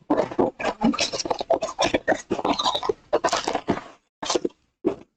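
Foil-wrapped trading-card packs and a cardboard mini box being handled: irregular crinkling, scraping and tapping as the packs are taken out of the box, with a short pause near the end.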